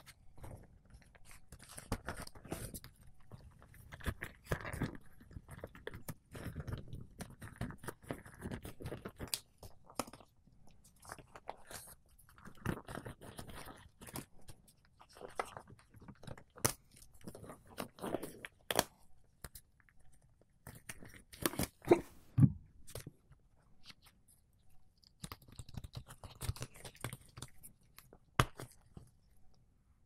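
Rubber gloves being pulled on and worked over the hands close to the microphone: irregular stretching, rubbing and crinkling, with many sharp clicks and a few louder ones about two-thirds of the way through.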